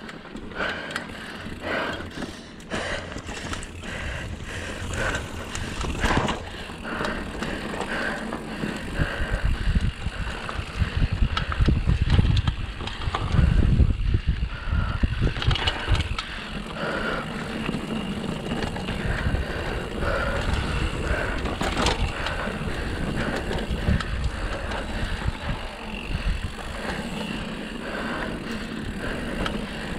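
Mountain bike riding a dirt trail: the tyres rolling over dirt and rocks and the bike rattling over bumps, with many short clicks. A heavier low rumble builds in the middle.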